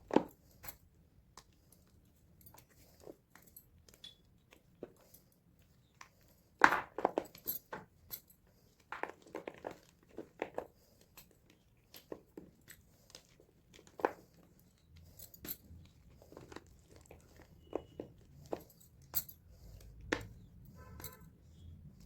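Blocks of gym chalk crunching and crumbling apart in irregular dry crackles with short pauses between, the loudest snap a little over six seconds in and a quick run of crunches a few seconds later.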